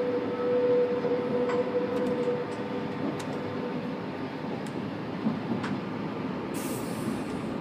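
MOB Golden Pass Panoramic train heard from its lead car, running slowly over points and rail joints with scattered clicks. A steady whine fades out about two and a half seconds in, and a short hiss comes near the end.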